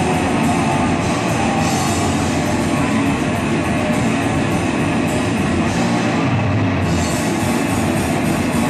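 Punk rock band playing live without vocals: electric guitar, bass guitar and drum kit, loud and dense.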